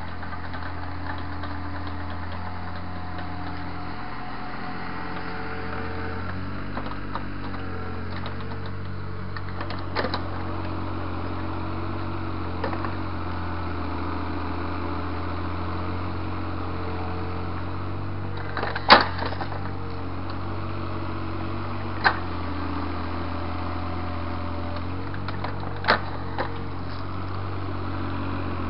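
Takeuchi mini excavator's diesel engine running steadily under load while it pushes soil back into a drain trench, its pitch shifting a couple of times. A handful of sharp knocks from the machine working the dirt break in, the loudest about two-thirds of the way through.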